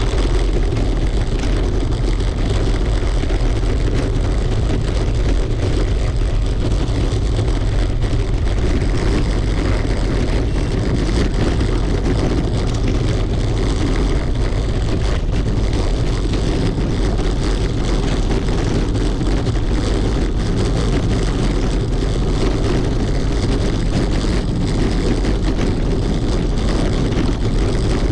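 Bicycle riding over cobblestones: a constant loud rattling rumble of the tyres and bike on the stone setts, picked up by a camera mounted on the bike.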